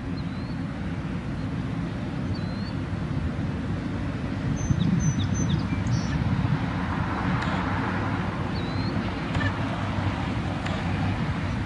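Outdoor ambience at an empty crossing: a steady low wind rumble, with small birds giving a few short, rising chirps. An approaching car's tyre and engine noise builds through the second half.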